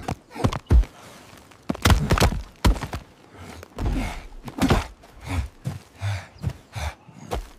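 Irregular thuds and scuffs of a struggle on dry, dusty ground, a dozen or so hits, as a man grapples with an antelope and is thrown and the animal's hooves break away.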